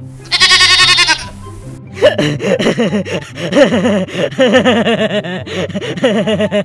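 Sheep bleating as a comic laugh-track effect: one short high, wavering bleat, then a run of rapid bleats like laughter lasting about four seconds, over background music.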